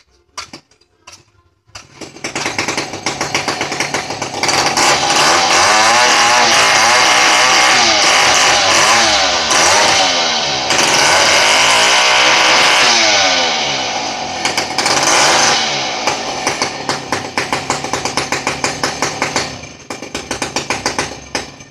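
Chainsaw engine running hard with its pitch sweeping up and down, then easing off after about three-quarters of the way and dying away near the end. A few short knocks come just before it starts.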